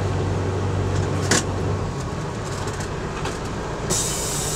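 Semi-truck diesel engine idling, heard from inside the cab. There is a sharp knock about a second in, and a steady hiss comes in suddenly near the end.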